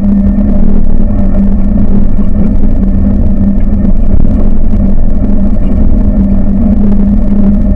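A motor vehicle's engine running at a steady pitch, with a heavy low rumble.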